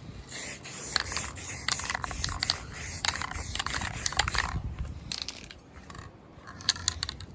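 Aerosol spray-paint can hissing in bursts, with sharp clicks mixed in. The spray dies down about four and a half seconds in, and a few clicks follow near the end.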